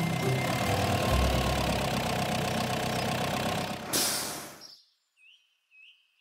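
Truck engine sound effect running with a low rumble as an animated water tanker truck drives in and stops, ending in a short hiss about four seconds in, after which it goes nearly silent.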